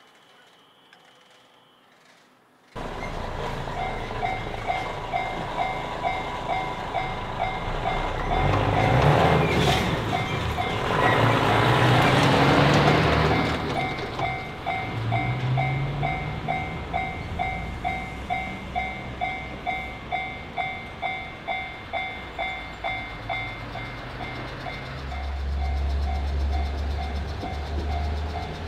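Japanese railway level-crossing warning bell ringing evenly at about two strikes a second. A louder rushing noise swells and fades in the middle, and near the end a low drone grows as a train approaches.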